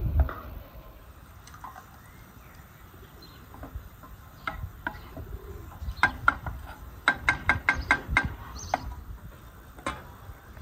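Small birds chirping: scattered short, sharp chirps, with a quick run of about five a second in the second half.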